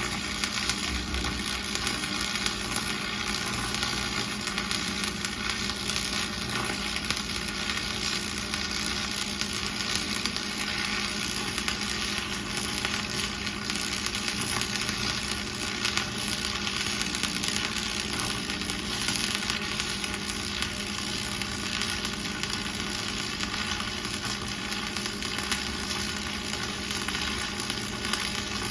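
Electric arc welding on steel: a steady, unbroken crackling sizzle of the arc as a bead is run, with a low steady hum underneath.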